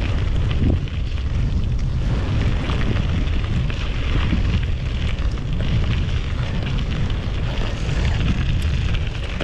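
Wind buffeting the microphone in a steady low rumble, over the fine crackle of mountain-bike tyres rolling along a rough dike track.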